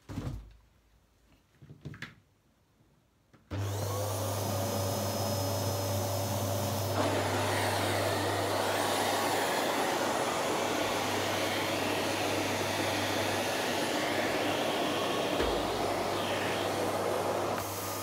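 A Philips 3000 series XD3110/09 bagged canister vacuum cleaner switches on about three and a half seconds in, after a couple of clicks, its motor whine rising as it spins up. It then runs steadily, its sound growing fuller and a little louder about three seconds later.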